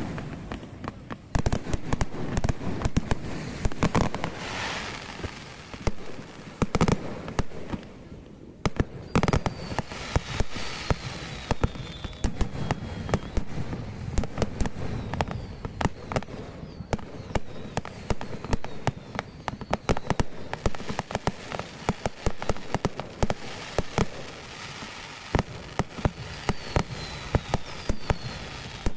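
Aerial fireworks exploding in rapid succession: deep booms mixed with dense sharp crackling. A short high whistle falls in pitch twice, once about ten seconds in and again near the end.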